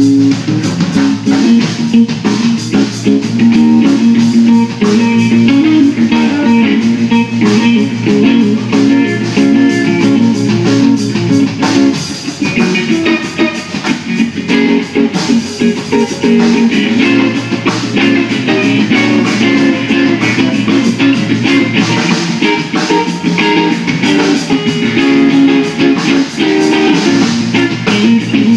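Live blues band playing an instrumental stretch: electric guitar over electric bass and a drum kit, with no singing.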